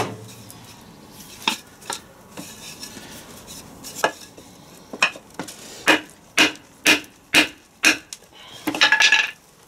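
Hammer blows on a wooden block held against an R380 gearbox's extension housing, knocking the tight housing loose. A row of sharp knocks, about two a second in the middle, then a quick flurry near the end.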